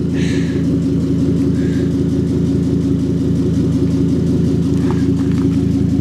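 Exhaust of a 2005 Ford F-350's 6.8 L Triton V10 idling steadily, heard at the tailpipe.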